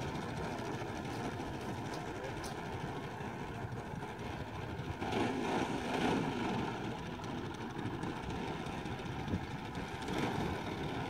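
Giant-scale RC Extra 330SC model's engine idling as the aircraft taxis on the runway, a little louder around five to six seconds in.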